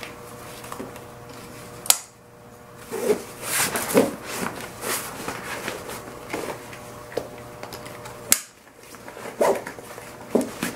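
Handling and cinching a Mosko Moto Reckless 80 soft motorcycle saddlebag: nylon fabric and webbing straps rustling as they are pulled and folded. Two sharp clicks stand out, one about two seconds in and one about two-thirds of the way through.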